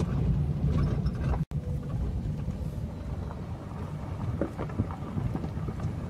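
Low, steady rumbling road noise of a vehicle travelling along a road. The sound drops out completely for an instant about a second and a half in.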